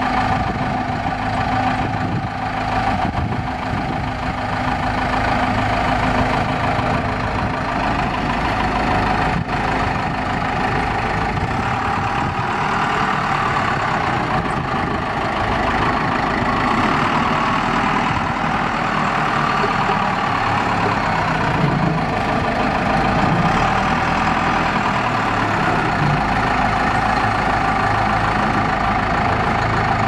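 The Case 580 Super L backhoe's Cummins 3.9-litre four-cylinder turbo diesel runs steadily while the machine drives along.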